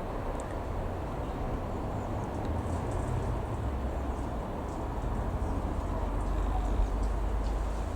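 The twin Pratt & Whitney PT6A-112 turboprop engines of a Cessna F406 running: a steady low rumble that swells slightly near the end.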